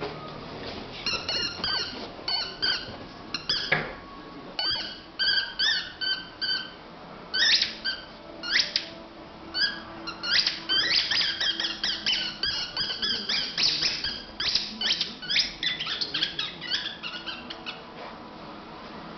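High-pitched squeaky whistling calls from an animal, coming in quick runs of short notes with many pauses between them.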